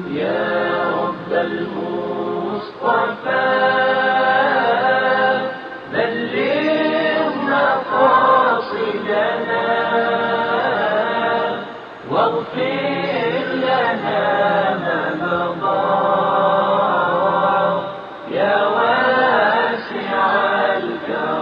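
An Arabic nasheed sung by layered, choir-like voices over a steady low drone. The long phrases break briefly about every six seconds.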